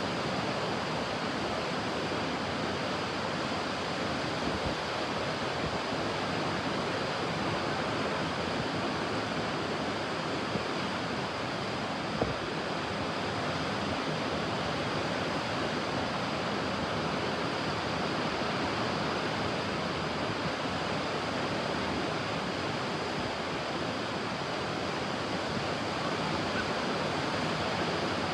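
Ocean surf washing onto a beach as a steady, even wash of waves, with one brief click about halfway through.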